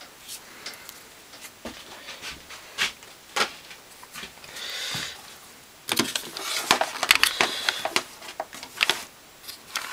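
Handling noise from the opened hand mixer: scattered clicks and knocks of its plastic housing and parts, with rustling of the cloth under it, growing busier over the last few seconds.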